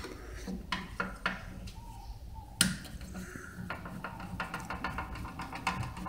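Light metallic clicks and knocks from tools and hands working on a microwave oven's sheet-metal chassis, starting to remove the magnetron, with one louder knock about two and a half seconds in.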